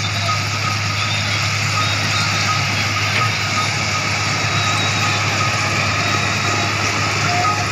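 Komatsu motor grader's diesel engine running steadily under load while its blade spreads crushed stone, with the stone grinding under the blade and tyres.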